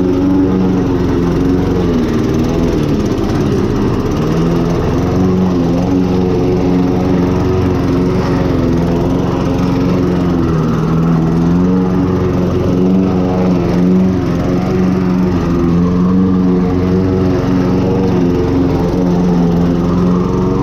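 Toro self-propelled lawn mower's single-cylinder engine running steadily while it cuts overgrown grass and weeds. Its pitch dips briefly about ten seconds in, then recovers.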